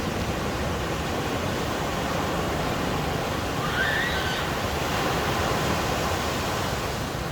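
Ocean surf breaking and washing on the beach, a steady rushing noise. About four seconds in, a brief high-pitched call rises and falls over it.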